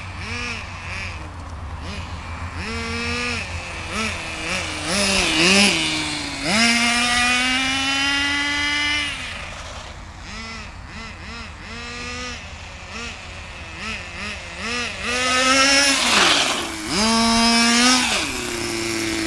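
Kyosho Sand Master radio-controlled car's small engine revving up and down as the car is driven. The pitch climbs and falls in repeated bursts, with a long high-pitched run at full throttle about a third of the way in and another near the end.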